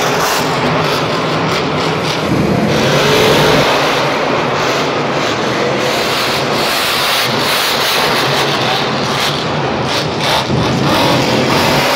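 Monster truck engines, the supercharged V8s of the Gas Monkey Garage and Lucas Oil Crusader trucks, running and revving hard as they race. It is a loud, continuous din whose engine pitch rises and falls.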